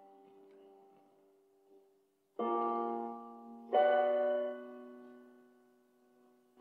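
Slow piano music. A chord from before fades out, then two chords are struck about two and a half and four seconds in, each left to ring and die away.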